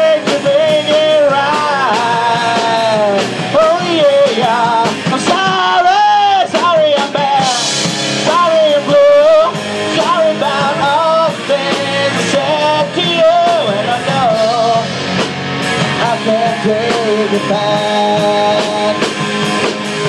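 Live rock band playing through a bar PA: electric guitars, bass and drums, with a bending melodic lead line over them, loud and steady.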